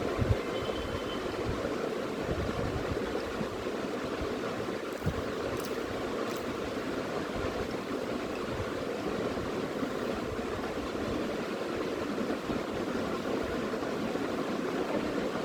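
Steady rushing background noise, like a fan or motor running, with a few soft low knocks scattered through it.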